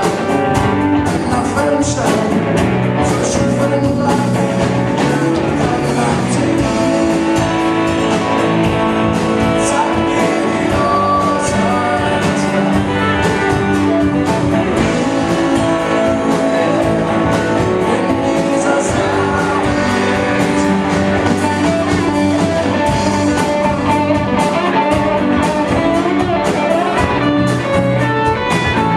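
Rock band playing live: acoustic and electric guitars over drums with cymbals, with a voice singing.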